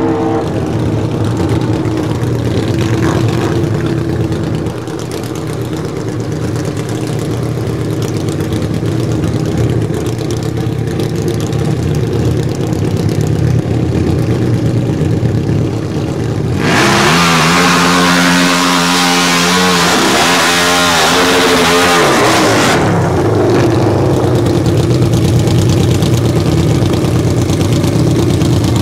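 Harley-Davidson V-Rod Destroyer drag motorcycles' V-twin engines running steadily. About 17 seconds in comes a loud burst of hard revving, about six seconds long, with a rushing hiss over it. Then the engines settle back to steady running.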